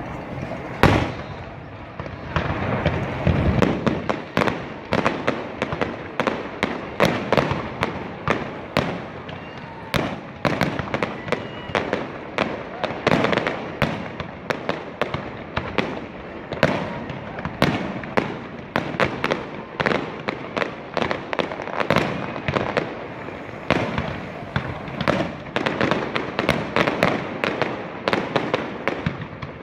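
Fireworks display: a dense, continuous run of sharp bangs, several a second, over a steady rumbling haze, with the loudest bang about a second in.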